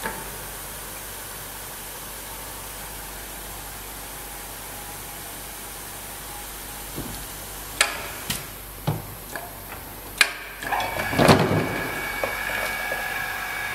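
Lewecke SP 2V vacuum lifter on a pillar jib crane handling a wooden board: a steady hiss from the suction, then several sharp knocks as the board and lifter arm are moved, and near the end a louder rush of noise with a steady high whistle.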